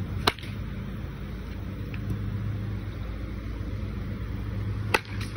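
Baseball bat striking a pitched ball twice, two sharp cracks about four and a half seconds apart, each followed by a fainter knock. A steady low hum runs underneath.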